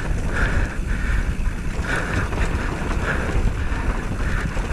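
Wind buffeting a camera microphone on a moving rider: a steady low rumble with a hiss that swells and fades irregularly.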